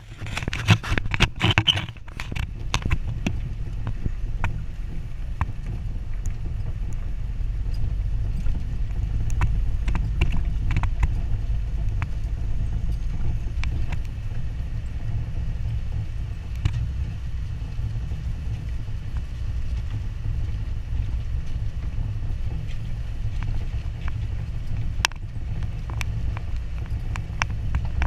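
Jeep Wrangler driving slowly on a dirt trail: a steady low engine drone, with scattered clicks, knocks and rattles from the tyres and body over the rough ground, busiest in the first couple of seconds.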